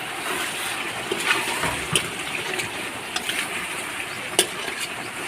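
Chicken kasa cooking in a pan: a steady sizzling hiss, with a few sharp clicks of a utensil against the pan.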